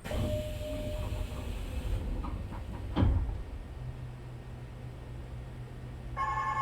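Inside a stopped Nishitetsu 3000 series electric train car: a sudden burst of noise at the start, a single thump about three seconds in, then a steady low hum. Near the end the door chime starts ringing ahead of the doors closing.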